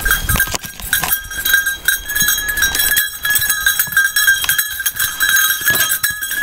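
Goats and a person moving about a farmyard: scattered footsteps and knocks. A steady high ringing tone runs underneath.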